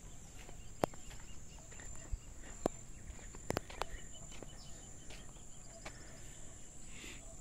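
Rural outdoor ambience: a steady high-pitched insect drone with faint bird calls, broken by a few sharp clicks about a second in and again around three to four seconds in.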